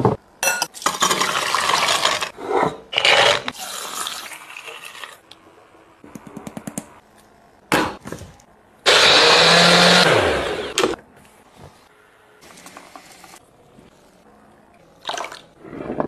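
Personal blender grinding soaked almonds with water, running for about two seconds near the middle and winding down at the end. Before it come clattering and scraping and a quick run of clicks; near the end there is a short rustle.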